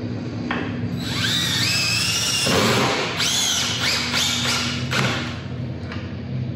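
Cordless drill driving composite deck screws into pre-drilled composite deck boards. The motor whine rises in pitch as it spins up, with a rougher burst about two and a half seconds in. A run of short pulses follows as the screw is run down, and it stops about five seconds in.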